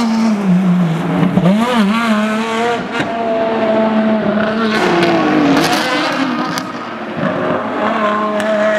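Ferrari V12 track cars braking into a chicane: the engine pitch drops over the first second or so, with quick throttle blips on downshifts around two seconds in, then the engines run on at held revs with more than one car heard at once. Loud.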